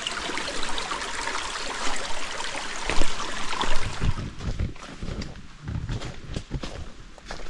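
Running water of a stream, which fades about four seconds in as irregular footsteps on the trail take over.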